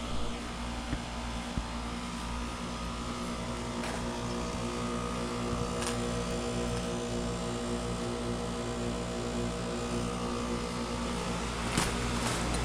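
2017 Ameristar M4HP4 3-ton heat pump outdoor unit running steadily during a partial defrost: an even compressor hum with several steady tones under a broad hiss, and a few faint clicks.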